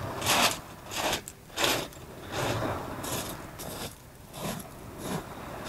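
Footsteps crunching on a shingle beach: a run of uneven crunches at walking pace, one every half-second or so.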